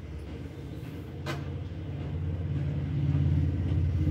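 Low rumble of a motor vehicle engine, growing louder over a few seconds, with a single sharp click about a second in.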